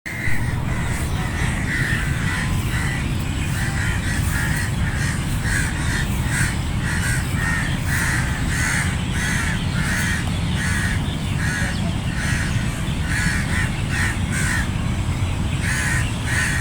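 A flock of crows cawing, many harsh calls overlapping and repeating in quick succession over a steady low rumble.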